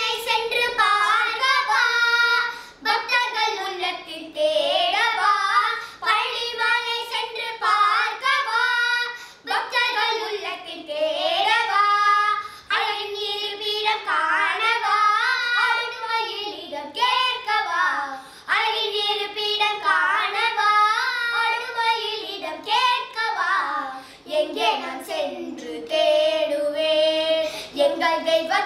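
Two young girls singing together a Tamil devotional song to Murugan in long, gliding phrases, with short breaks for breath.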